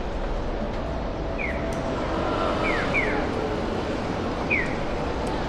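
City street ambience with steady traffic noise, and short high falling chirps repeating in a regular pattern: a single chirp, then a quick pair.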